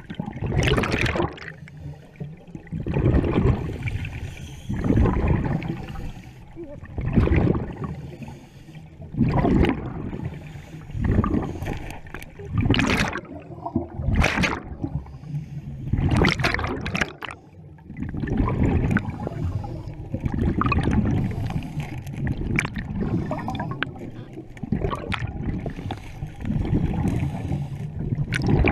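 Scuba diver breathing through a regulator underwater: a rush of exhaled bubbles repeating about every two seconds.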